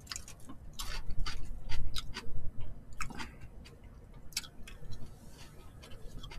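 Close-up eating sounds: chewing with a run of short, irregular wet clicks from the mouth.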